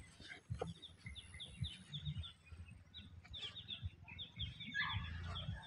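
Small birds chirping faintly in quick runs of short, falling chirps, with scattered soft low thumps.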